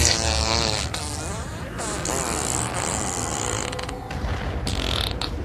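Film battle-scene soundtrack of score mixed with battle effects. In the first second there is a wavering, bending pitched sound like a creak, and near the end come a few sharp noises.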